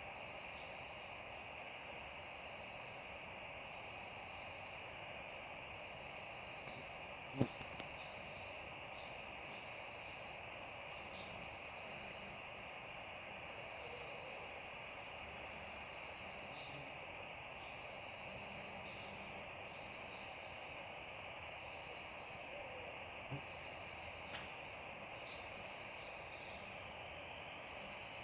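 Night-time chorus of crickets and other insects: a steady high-pitched trill with overlapping repeated chirps just below it, unbroken throughout. A single sharp click sounds about seven seconds in.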